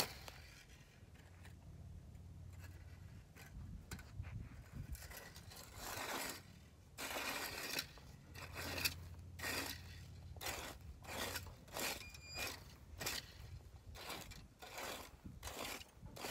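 A plastic leaf rake scraping through dry grass and dirt in repeated strokes, a few at first and then about one or two a second from about five seconds in.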